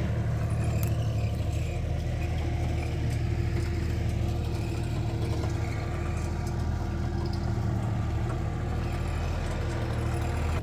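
Bobcat skid-steer loader's diesel engine running steadily at idle.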